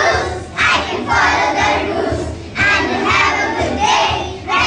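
A group of children singing together in unison, in loud phrases of one to two seconds with short breaks between them.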